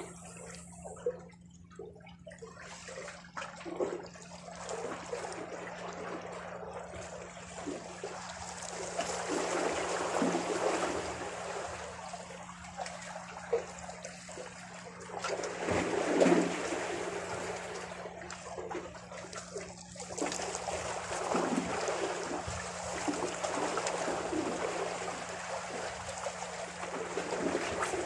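Small sea waves washing against shore rocks, water splashing and trickling back between the stones. The wash comes in several swells, the loudest about halfway through.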